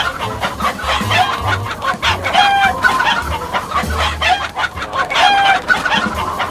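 Cartoon chicken sound effect: rapid clucking, broken every few seconds by a pitched squawk.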